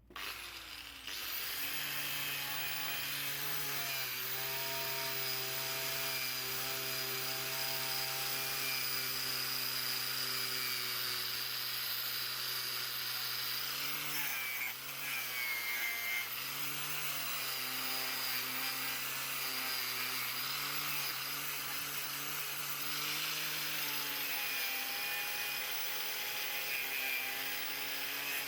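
An electric power tool running steadily with a hiss, its motor pitch dipping briefly a few times as it is loaded.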